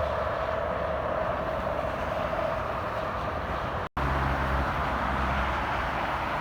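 Steady highway traffic noise from passing vehicles, with a tone that fades over the first few seconds. The sound drops out completely for an instant just before four seconds in, then continues with a steady low hum.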